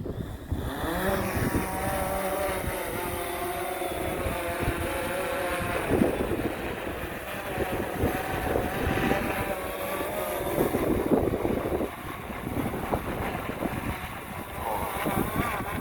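DJI Phantom 4 Pro V2.0 quadcopter's propellers spinning up with a rising whine, then running at a steady pitch. Strong gusting wind buffets the microphone.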